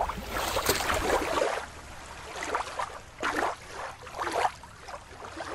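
Shallow water sloshing and lapping at a shoreline, with wind rumbling on the microphone. About a second and a half in, this gives way to quieter water noise with a few soft swells.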